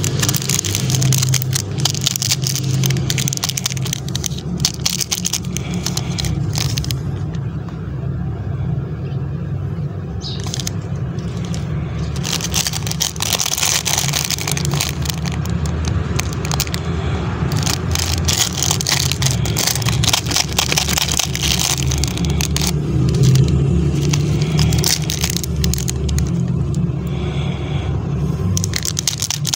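Plastic candy wrappers crinkling and crackling as fingers squeeze and turn them, in irregular bursts with a short lull, over a steady low hum.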